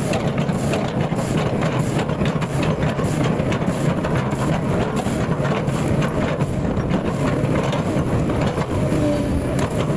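Excavator's diesel engine running steadily under load, with a dense, continuous rattle of clicks and knocks over a low rumble.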